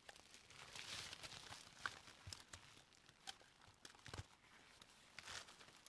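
Faint rustling and crackling of dry twigs and leaf litter as broken sticks of dry wood are handled and set down on the forest floor, with a soft knock about four seconds in.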